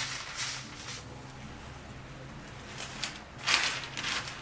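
Clear plastic film crinkling and baking paper rustling as hands cover a dough braid on a baking tray. There is a short rustle near the start and a louder crinkle about three and a half seconds in.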